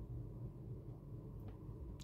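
Quiet room tone with a steady low hum, and one faint click about one and a half seconds in as small drone wire connectors are handled.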